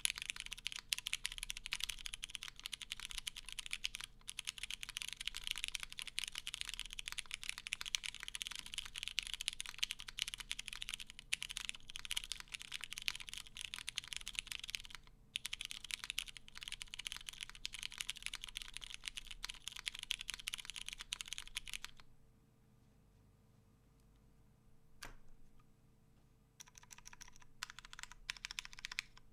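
Fast typing on a Vella 60 Performance Edition mechanical keyboard with lubed vintage Cherry MX Brown switches on a polycarbonate plate, O-ring mounted, under GMK keycaps. The builder describes the unweighted case as a bit pingy and hollow. The typing stops about three-quarters of the way through for a few seconds, with a single keypress in the pause, then resumes near the end.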